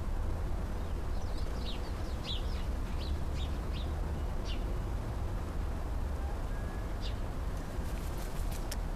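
Small birds chirping in short, high notes: a quick run of them in the first few seconds and another single chirp about seven seconds in, over a steady low rumble. A few sharp clicks come near the end.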